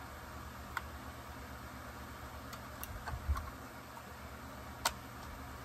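A few light clicks and taps of chainsaw parts being handled during hand teardown of a Husqvarna 562XP Mark II, the sharpest near the end, over a steady background hiss.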